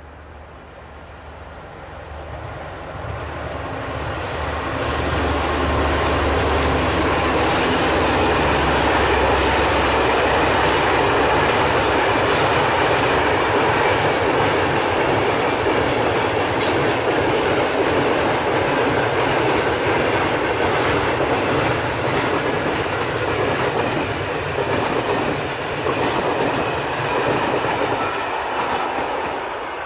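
Train growing louder over the first five or six seconds, then running loud and steady with its wheels clattering over the rail joints in a clickety-clack rhythm.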